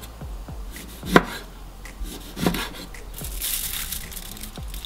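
Kitchen knife slicing through a lemon and knocking on a wooden cutting board: two strikes about a second and a half apart, the first louder. A short rustle follows near the end.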